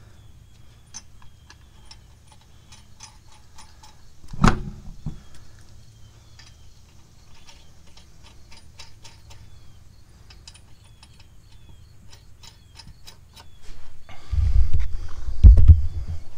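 Lug nuts being spun by hand onto the wheel studs, a steady run of small metallic clicks as the nuts turn on the threads. A single thud about four and a half seconds in, and a loud low rumble near the end.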